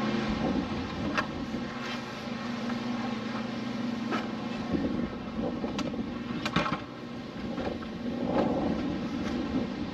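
Plastic antenna housing being handled and fitted, giving a few short light clicks and knocks scattered through. Under it runs a steady low hum, with wind on the microphone.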